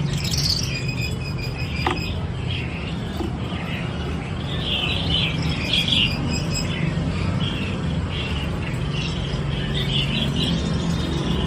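Sun conure chirping and squealing in short, repeated bursts of chatter, loudest around the middle, over a steady low background hum.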